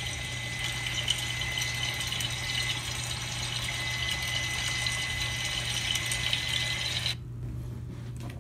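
Sausage sizzling in hot oil in a frying pan: an even, crackling hiss over a steady low hum and a faint high whine. It cuts off abruptly about seven seconds in.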